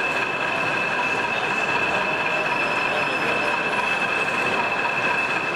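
Sound-fitted model of a BR Class 40 diesel locomotive idling: a steady engine sound from its speaker, with the class's high, steady turbocharger whistle over it.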